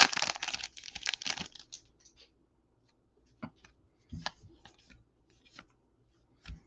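Foil wrapper of a baseball card pack crinkling and tearing as it is ripped open, loudest in the first second and fading out by about two seconds in. Then a handful of separate soft clicks as the cards are slid and flicked through one by one.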